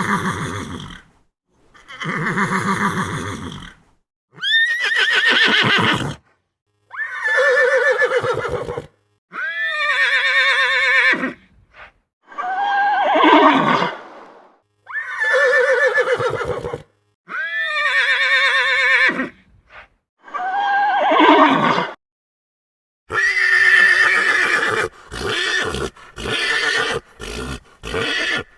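Horse whinnying: a series of separate neighs about two seconds each with short gaps between, each call quavering and sliding in pitch. Near the end the calls come quicker and shorter.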